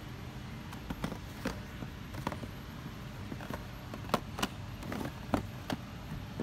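Plastic blister packs and their cardboard backing cards knocking and clicking against each other as they are handled and flipped through: about a dozen light, irregular taps, the sharpest a little past the middle, over a steady low background rumble.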